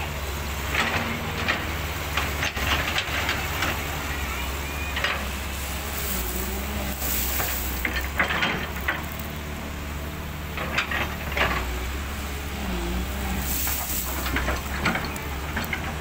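Caterpillar hydraulic excavator's diesel engine running steadily while the machine works its bucket over gravel, with frequent crackling clicks and crunches of stone throughout.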